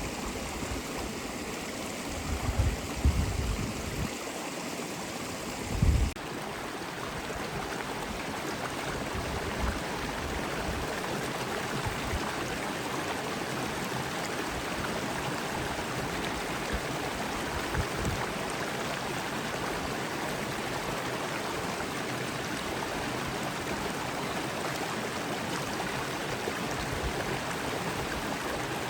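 Steady rushing water, like a stream, running throughout, with a few low thumps in the first six seconds.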